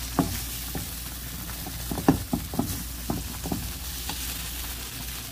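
Small dried anchovies sizzling in a hot pan as they are stir-fried in sauce, with a utensil knocking and scraping against the pan several times, loudest about two seconds in.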